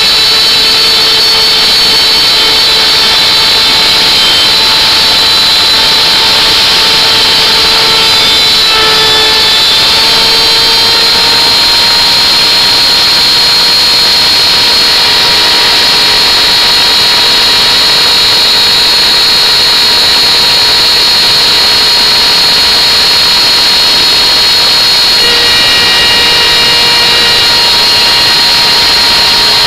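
Electric router running at high speed with its bit cutting a groove in wood: a loud, steady high-pitched whine whose pitch shifts slightly about ten seconds in.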